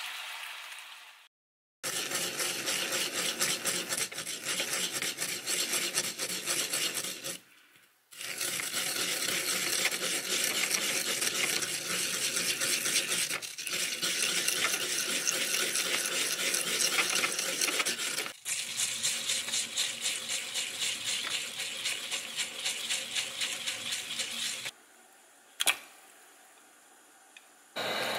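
Food-prep sounds in several short cuts: dense gritty scraping and rubbing, including hands working coarse salt around a ceramic bowl, then a run of evenly repeated strokes. Near the end the sounds drop away to a quieter stretch broken by one sharp click.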